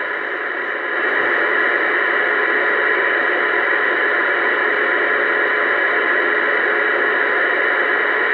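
Uniden Bearcat 980SSB CB radio hissing with steady static through its speaker on AM channel 28, a narrow band of noise with no voice. It gets a little louder about a second in.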